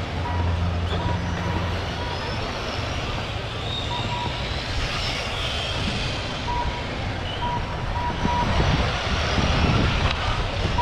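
Electric RC cars racing laps around an oval track, their motors whining as they pass. Short repeated electronic beeps at one pitch come near the start and again about two thirds of the way through.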